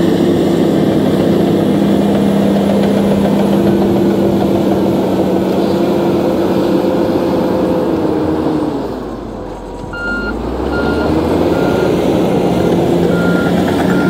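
Komatsu D65PX crawler bulldozer's diesel engine running steadily under load as it pushes a pile of coffee grounds. About two-thirds of the way through the engine note drops, and the dozer's backup alarm starts beeping, roughly a beep a second, as it reverses.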